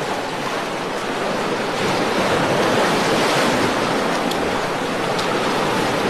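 Ocean surf washing over shoreline rocks: a steady rush of breaking waves that swells through the middle seconds.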